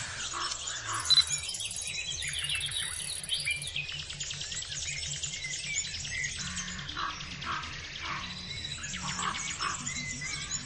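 Rapid bird-like chirps and tweets over light background music with a steady pulse.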